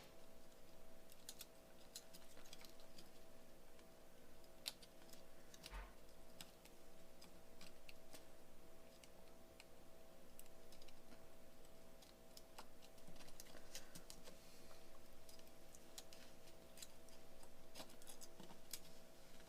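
Faint, scattered small clicks and taps of handling, irregular and a few a second, with a slightly louder knock about six seconds in, over a steady low electrical hum.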